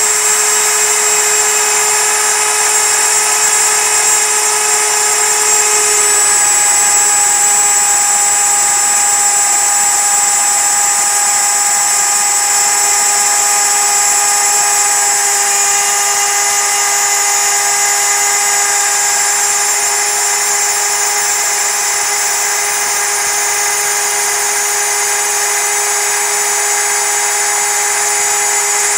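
MPCNC router spindle running at full speed while a single-flute end mill cuts 6061 aluminium: a loud, steady machining whine with a slight drop in pitch about six seconds in.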